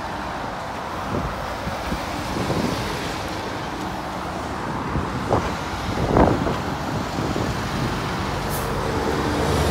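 Heavy tipper lorry passing below, its engine and tyres over steady road traffic noise, with two brief squeaks about five and six seconds in.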